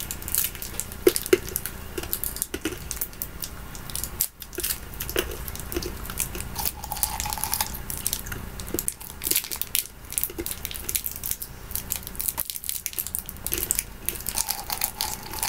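Small plastic candy wrappers crinkling and crackling as hard sour candies are unwrapped by hand, a dense run of small irregular clicks.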